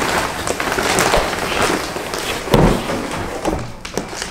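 Plastic wrapping crinkling and cardboard scraping as a ring light in its padded carrying bag is pulled up out of its cardboard shipping box, with scattered knocks and a thump about two and a half seconds in.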